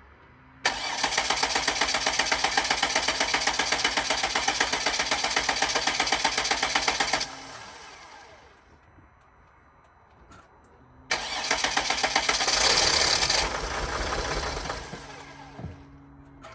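Starter cranking the freshly installed 3.0L V6 diesel of a 2007 Freightliner Sprinter with an even pulsing beat for about six seconds, then stopping. A few seconds later a second crank swells louder as the engine briefly starts, then dies away.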